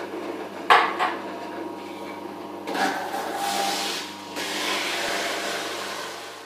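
Electric juicer motor running with a steady hum while raw produce is pushed down its feed tube and ground, with irregular crunching and grinding and a sharp crunch about a second in. The motor stops at the end.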